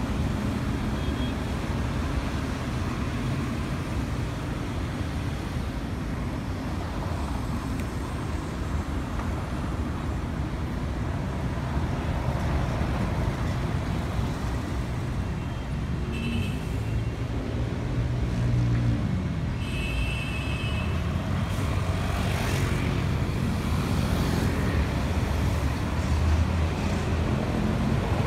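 Busy city street traffic: cars and buses passing in a steady rumble, with a couple of brief high-pitched tones partway through.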